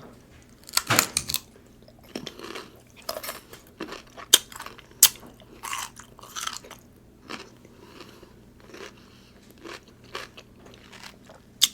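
Eating sounds from a king crab seafood boil: chewing and crunching, with sharp clicks and cracks scattered through, the loudest about a second in and again near four and five seconds.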